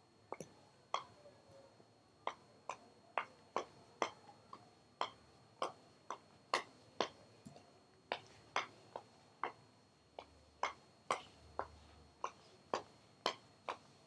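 DIY wooden underwater-hockey stick knocking and flicking a round puck made from an ashtray wrapped in rubber and foam tape: a run of short, sharp knocks, about two a second and slightly uneven.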